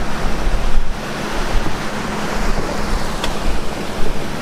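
Choppy shallow sea water surging and washing at the shoreline, with wind buffeting the microphone in irregular low gusts.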